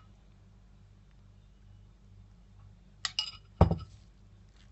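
A metal utensil clinks a few times against a glass mixing bowl with a short ring about three seconds in, followed by a single dull thump. A faint low hum sits underneath.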